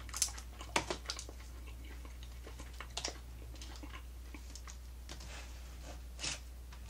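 Eating sounds: fried quail being torn apart by hand and chewed, a scatter of about half a dozen short, sharp crackles and clicks with quiet stretches between, over a steady low hum.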